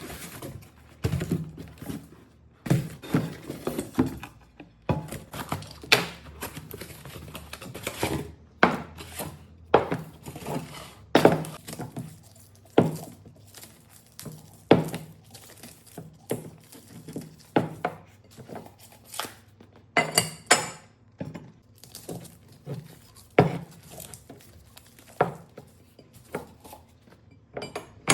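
Glass spice jars and their porcelain lids from a spice set being handled and set down, making a string of separate clinks and knocks. One longer, ringing glassy clink comes about twenty seconds in.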